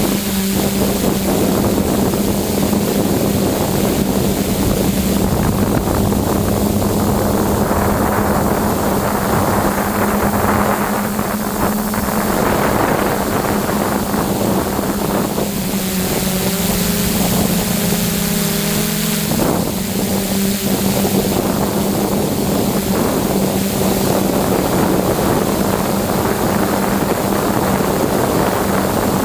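Hexacopter's six brushless motors and propellers (DJI E310 propulsion) running with a steady hum over rushing wind and propeller wash, heard close up from the camera on board. About 16 seconds in, the hum dips slightly in pitch for a few seconds, then snaps back up.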